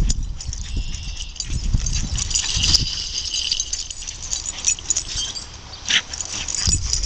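Running footsteps thudding and swishing through grass, over a steady high hiss.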